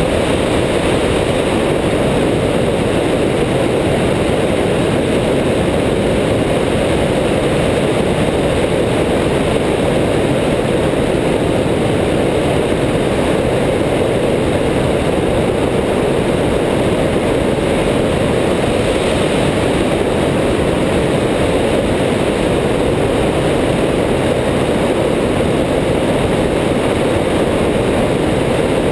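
Stampe SV.4 biplane in steady cruising flight: an even drone of engine and propeller under heavy rushing airflow on the microphone mounted outside on the wing.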